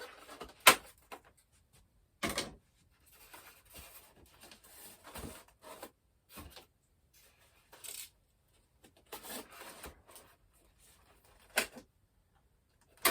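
Scissors snipping plastic wire ties that hold a model in its box: a few sharp snips, with rustling of packaging in between.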